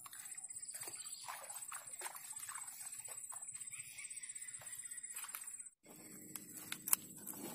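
Animal calls: a run of short, sliding cries over a steady high-pitched whine. The sound drops out abruptly for a moment near the end, then a few sharp clicks follow.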